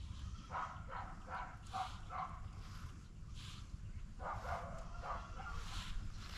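A dog barking in two runs of quick, repeated barks, the first about half a second in and the second about four seconds in, over a steady low rumble.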